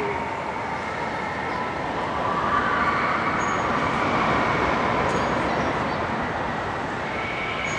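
Steady rumbling din of a running carousel in an indoor amusement hall, with faint drawn-out tones sounding above it.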